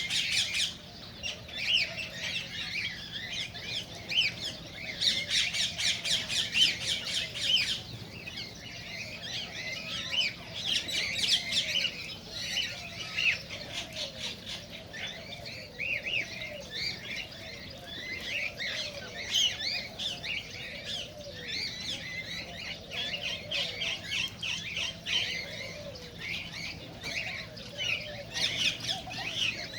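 Cockatiels chirping and squawking without a break, with several spells of fast, harsh squawks.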